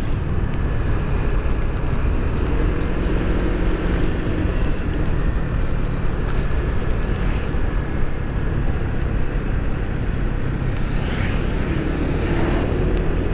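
Motor scooter ridden at a steady cruising speed, heard from the rider's helmet camera: a continuous rush of road and wind noise over the low, even hum of the engine.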